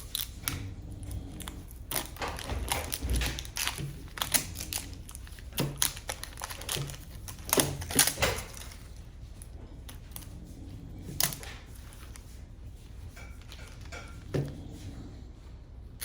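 Clicking, tapping and crinkling as small plastic toys and their packaging are handled. The clicks come thick and fast for the first half, then thin out to a few single knocks.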